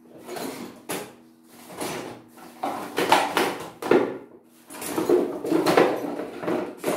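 Packing noises: plastic film, tape and cardboard being handled, in a series of rustling, scraping bursts, loudest about three seconds in and again near the end.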